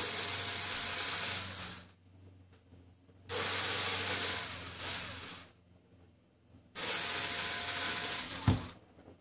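A small handheld power tool runs in three bursts of about two seconds each, starting and stopping abruptly, as the end piece is taken off a wooden piano fall board. A sharp knock comes near the end.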